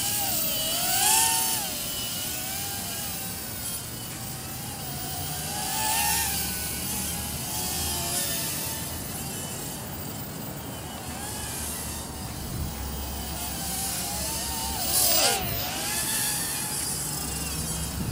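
Small quadcopter's motors and propellers whining in flight, the pitch wavering up and down as the throttle changes, with a sharp dip in pitch near the end as it swoops. A low rumble of wind on the microphone sits underneath.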